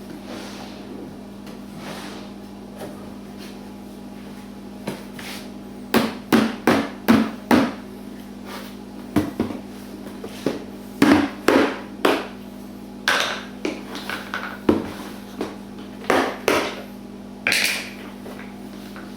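Hammering: an irregular run of sharp knocks and taps in clusters, starting a few seconds in, over a steady low hum.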